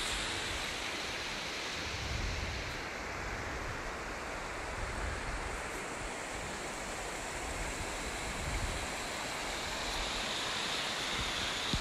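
Mountain stream running between snow-covered rocks, a steady rushing of water, with low rumbles of wind on the microphone.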